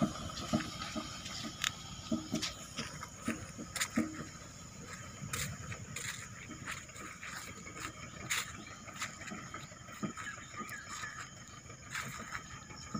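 Mitsubishi pickup truck's engine running as the truck drives away over a rough dirt track into brush, its sound fading over the first few seconds. A steady high-pitched drone and scattered sharp clicks and snaps are heard throughout.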